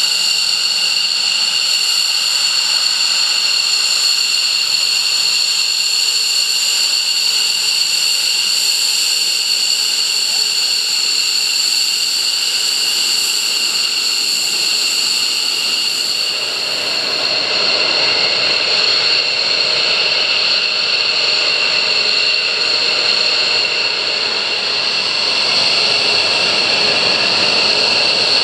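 The twin turbofan engines of an F-15DJ Eagle run at low power on the ground, giving a loud, steady whine of several high tones over a hiss. A little past halfway the sound changes abruptly and takes on more low rumble beneath the whine.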